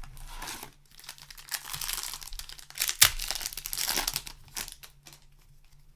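Plastic foil wrapper of a Magic: The Gathering booster pack crinkling as it is handled and torn open, with one sharp crackle about three seconds in.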